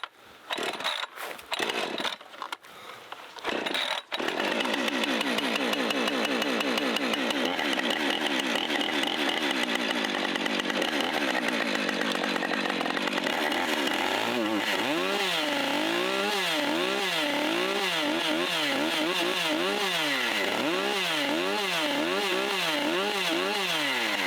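Husqvarna 545 Mark II two-stroke chainsaw starting up after a few short sputters and then running steadily. From about halfway through, its engine speed rises and falls over and over, roughly once a second.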